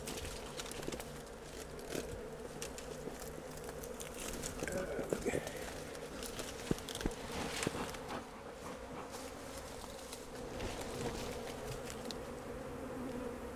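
Honeybees from a disturbed colony buzzing in a steady hum, with scattered light knocks and rustles of hands working in the cut-open hollow log.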